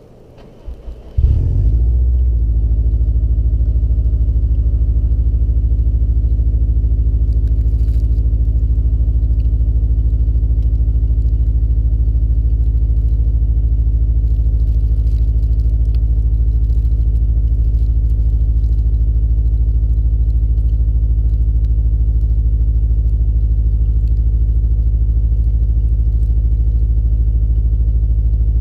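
Cold start of a Stage 3 tuned 2020 Subaru WRX STI's turbocharged 2.5-litre flat-four: a brief crank about a second in, then the engine catches with a flare of revs. Within a second it settles into a steady cold idle.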